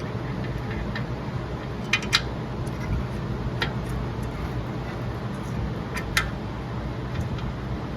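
A handful of short, sharp metallic clicks as brake caliper bracket bolts and tools are handled: two quick pairs and one single click, over a steady low hum.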